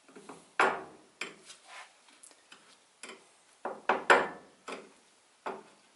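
Steel push rod clicking and scraping against the inside of a 6.7 Cummins tappet as it is worked around the edges to spread assembly lube: irregular sharp metallic clicks, with a cluster of the loudest about four seconds in.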